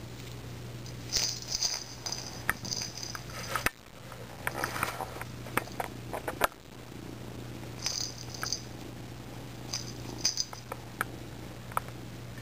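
A young kitten purring while it grapples a knitted toy on a shaggy rug, with scuffs, rustles and sharp little clicks from paws and claws, and a few short high-pitched sounds.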